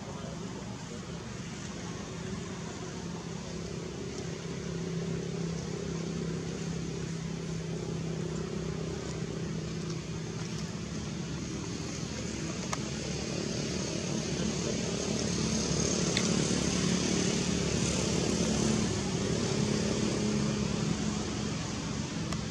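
A motor drones steadily with a low hum. It grows louder through the middle and peaks about three-quarters of the way through, then eases slightly near the end.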